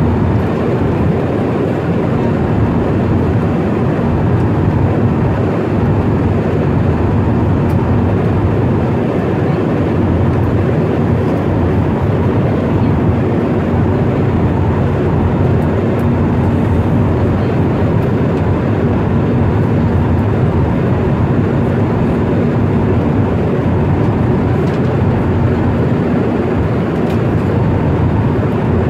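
Jet airliner in flight heard from inside the cabin: the turbofan engines and rushing air make a loud, even roar with a faint steady hum under it.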